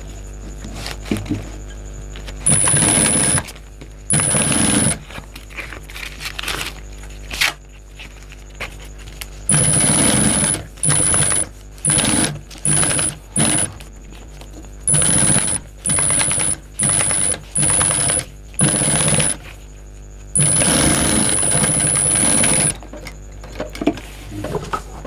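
Primex high-speed industrial lockstitch sewing machine stitching a binding strip onto a bag panel in about a dozen short runs, each with a high whine, starting and stopping abruptly. The longest run, about two seconds, comes near the end; between runs there is light rustling and clicking of fabric being repositioned.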